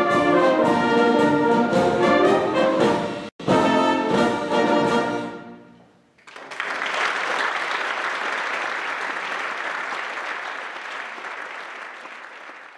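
Wind band of brass, saxophones, flutes and drum kit playing the closing bars of a piece, with a brief dropout in the sound just over three seconds in. The final chord dies away about six seconds in, and the audience breaks into applause that slowly fades.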